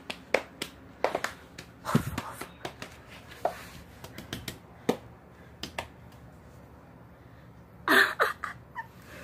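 A series of irregular sharp clicks, with a louder cluster of clicks near the end.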